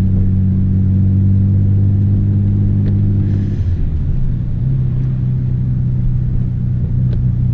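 Nissan Skyline R32 GT-R's RB26DETT twin-turbo straight-six running under way, heard from inside the cabin. Its steady note changes pitch about three and a half seconds in, then settles steady again.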